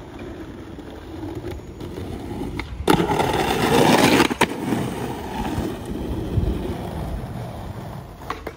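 Skateboard wheels rolling on concrete and building up. About three seconds in, a sudden loud scrape of the trucks grinding along a skate ledge lasts about a second and a half and ends with a click, then the board rolls on and fades.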